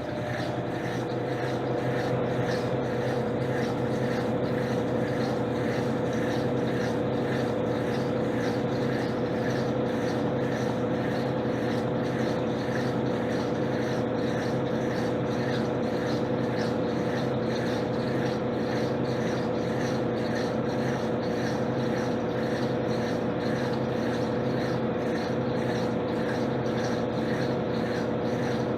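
Electrolux LTC10 top-loading washing machine spinning, its motor building to speed over the first couple of seconds and then holding a steady hum with a fine, even pulse. This is the spin stage near the end of the jeans cycle.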